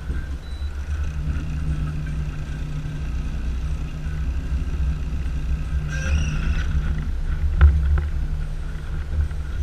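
Boat's outboard motor running steadily at trolling speed, with a low rumble. One short knock about two-thirds of the way through.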